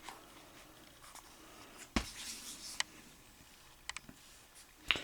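Quiet handling of a cardboard Blu-ray digibook case: a few short clicks and taps, the firmest about two seconds in and a quick double click about four seconds in.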